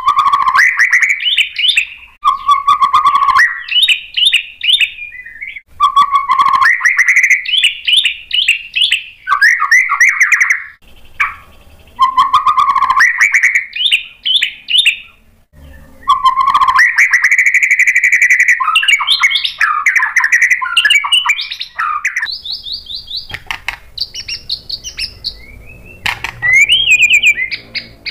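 White-rumped shama (murai batu) singing a long, varied song of quick chirps, trills and clear whistled notes, with a couple of short pauses about halfway through.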